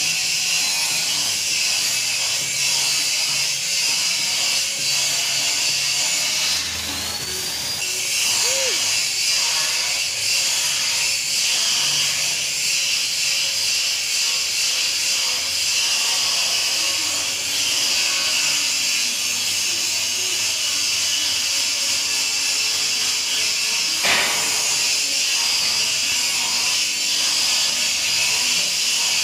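Stick-welding arc from an E6013 electrode burning with a steady hiss, breaking off briefly about seven seconds in, with a sharp crack about 24 seconds in. Background music with a singing voice plays underneath.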